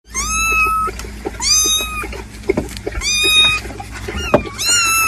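Kitten meowing four times in high-pitched calls, each under a second long, with a few short knocks between them.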